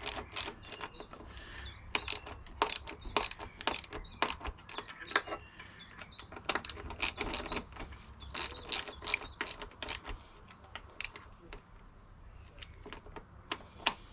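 Ratchet wrench clicking in short irregular runs as pannier rack bolts are tightened, with knocks of the tool against metal. The clicking thins out after about ten seconds.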